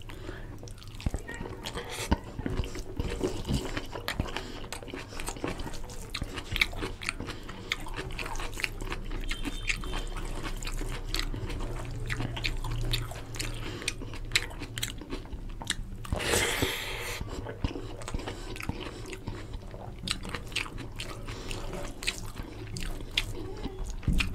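Close-up wet eating sounds: chewing and mouth clicks on rice and chicken curry, with fingers squelching as they mix oily rice and curry on a steel plate. A short noisy rush comes about two-thirds of the way in.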